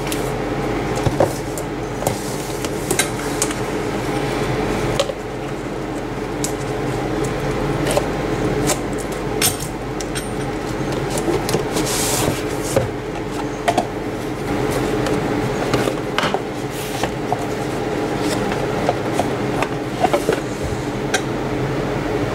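Unboxing handling sounds: the speaker's cardboard box and packaging being opened and handled, with repeated small clicks, knocks and rubbing, and a brief rustle about twelve seconds in, over a steady background hum.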